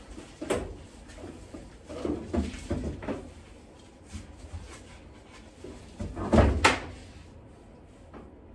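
Pop-up collapsible backdrop being handled against a tiled wall: the fabric rustles and the flexible frame knocks and scrapes in several short bursts. The loudest knocks come about six and a half seconds in.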